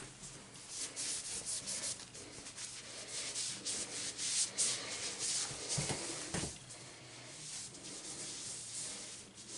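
A cloth rubbing over a candlepin bowling ball, wiping it down with rubbing alcohol in quick repeated strokes, with a couple of heavier strokes about six seconds in.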